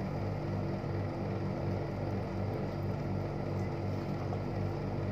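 A steady low mechanical hum, throbbing regularly about twice a second.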